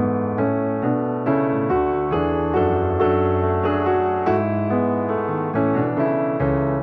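Background piano music: a melody of notes that changes every fraction of a second, playing continuously.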